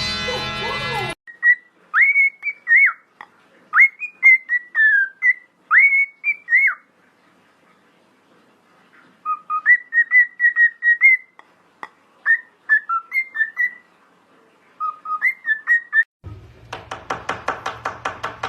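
A parrot whistling phrases of short, clear notes that glide up and down, with pauses between the phrases. Near the end a different buzzy, rapidly pulsing sound takes over.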